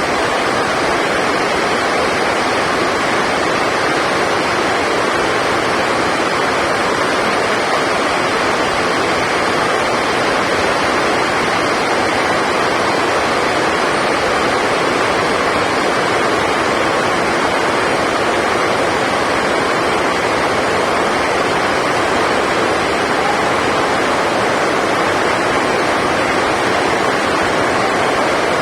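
Heavy rain: a loud, steady rushing noise that does not let up.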